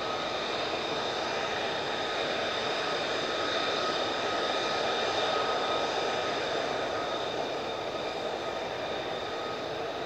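Pratt & Whitney F135 turbofan of a taxiing F-35A Lightning II running at low power: a steady jet whine with several high tones over a rushing hiss. It swells slightly about halfway through, then eases as the jet rolls past.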